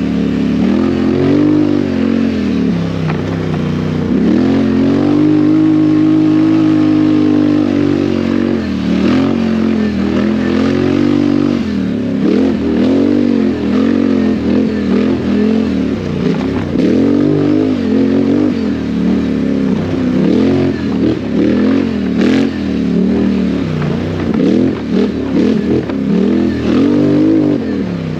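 ATV engine under hard riding, held at high revs for a few seconds, then rising and falling again and again as the throttle is opened and closed. A single sharp knock comes about three-quarters of the way in.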